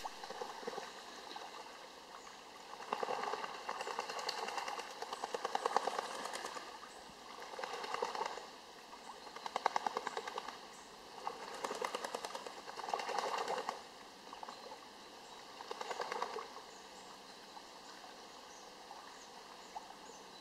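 Ducks flapping their wings on a pond: about half a dozen bouts of rapid wing-beating, each lasting one to three seconds, with quieter lulls between.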